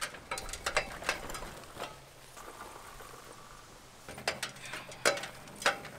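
Scattered clicks and metallic clanks of a pit bike being rolled down an aluminium loading ramp from a pickup bed, with a quieter stretch in the middle and a few sharper knocks near the end.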